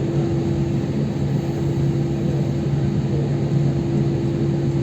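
Steady drone inside an airliner cabin after landing: two steady tones over a low rumble and hiss.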